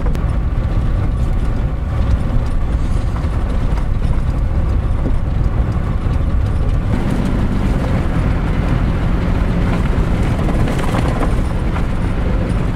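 Toyota 4Runner driving on a rough dirt trail, heard from inside the cabin: a steady low rumble of tyres and suspension with light rattling, and a steady engine hum that comes in about seven seconds in.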